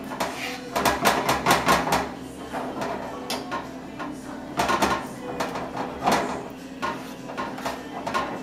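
Metal spoon stirring a red wine sauce in a skillet, scraping and clinking against the pan in several quick runs of strokes.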